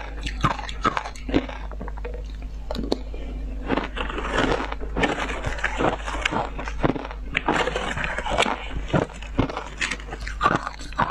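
Ice coated with milk powder being bitten and chewed close to the microphone: a dense, irregular run of sharp crunches. A steady low hum runs underneath.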